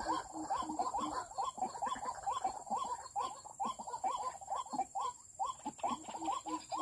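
White-breasted waterhen calls: a fast series of repeated croaking notes, about three or four a second, going on without a break.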